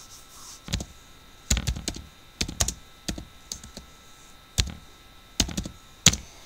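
Typing on a computer keyboard: irregular runs of keystrokes with short pauses between them, the sharpest keystroke near the end.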